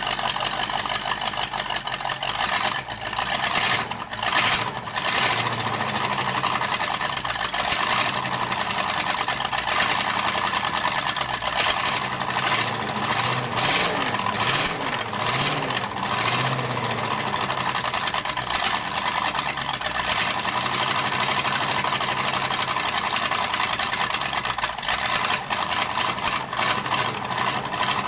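Ford 351 V8 of a 1978 F-150 running loud, its speed rising and falling a few times in the middle as the throttle is worked by hand at the carburetor. It keeps running only on the accelerator pump's shots of fuel, which the owner puts down to a junk venturi assembly, and the open exhaust crossover port makes it loud.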